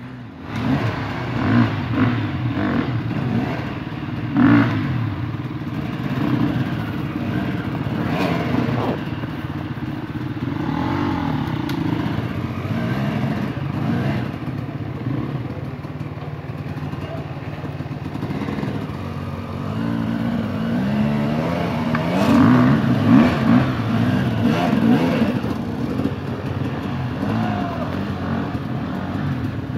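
Several enduro dirt bike engines revving unevenly under load on a steep climb, the pitch rising and falling with each burst of throttle. The revving is loudest about three quarters of the way through.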